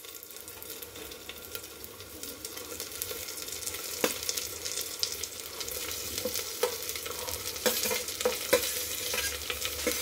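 Fried vegetables sizzling as they are scraped into hot ghee and fried onions in a pressure cooker, the sizzle growing louder after a couple of seconds. Several sharp clicks and scrapes of a metal spatula against the steel plate and cooker.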